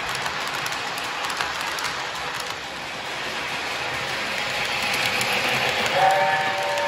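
Lionel LionChief Hogwarts Express O-gauge toy train running on its track with a steady noisy rush. About six seconds in, the locomotive's electronic steam whistle sounds a held three-note chord.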